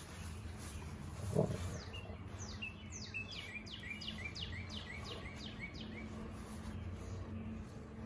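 A bird singing a run of about eight quick notes, each sliding down in pitch, at roughly three a second, over a low steady hum. A short dull thump comes about a second and a half in.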